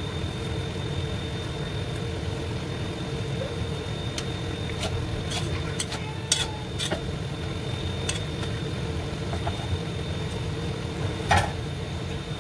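Knife chopping green onions on a wooden cutting board: scattered sharp knocks, the loudest a little past halfway and another near the end, over a steady low kitchen hum.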